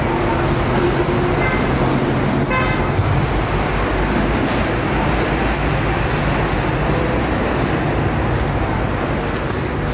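Steady road traffic noise with engines running, and a short horn toot about two and a half seconds in.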